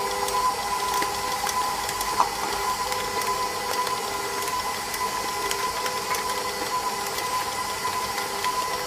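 Electric mixer with a flat beater running steadily at medium speed, creaming cream cheese and sugar in the bowl, with a constant motor whine and a few faint ticks.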